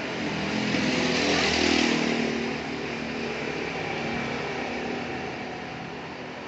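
A motor vehicle engine passes by, rising to a peak about a second and a half in and then fading, over a steady background hum of traffic.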